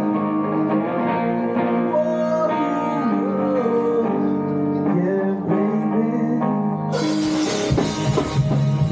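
Live rock band playing: sustained guitar chords with a bending melodic line, then about seven seconds in the sound turns suddenly fuller and brighter as the whole band comes in hard.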